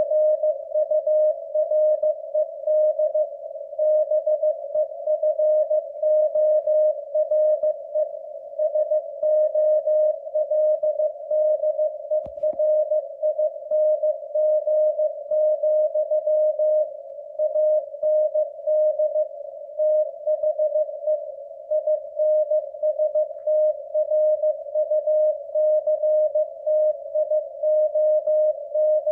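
Morse code at 15 words per minute from a W1AW code practice transmission. A single steady mid-pitched tone is keyed on and off in dots and dashes, with a faint hiss around the tone between characters.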